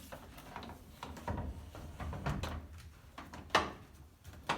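Glass lid of a Fisher & Paykel Cleansmart washing machine being pulled and slid out over its spring-loaded hinge rods: scattered light knocks and clicks, with a sharper knock about three and a half seconds in and another near the end.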